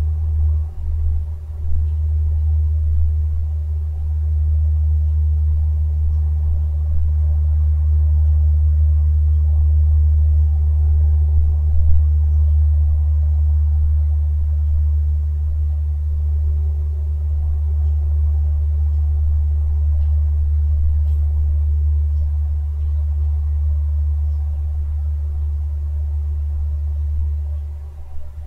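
A steady low rumble, dipping briefly about a second in and again near the end.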